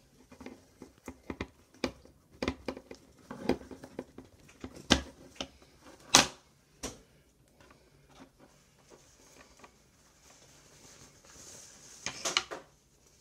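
Plastic machine-embroidery hoop being worked apart and lifted off toilet paper and stabilizer: a run of sharp clicks and knocks against the table, the loudest about five and six seconds in, with paper rustling and more clicks near the end.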